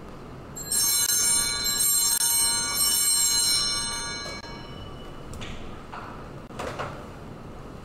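Altar bells shaken three times about a second apart, each ring bright and high and dying away over a few seconds, marking the elevation of the chalice at the consecration. Two faint knocks follow.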